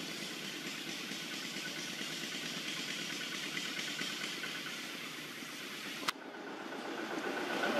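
Steady background noise with a faint high tone running through it, broken by one sharp click about six seconds in.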